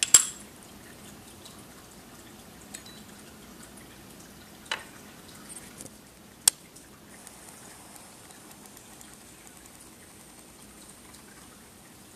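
Sharp metal clicks from handling the slim center changer spindle of a Dual 1019 turntable as it is lifted out of the platter: a loud click at the very start, then two more a few seconds apart near the middle, with a few faint ticks between.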